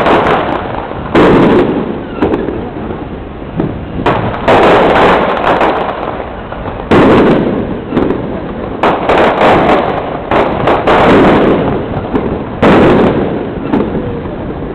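Fireworks going off: a string of loud bangs at uneven intervals, each dying away over about a second.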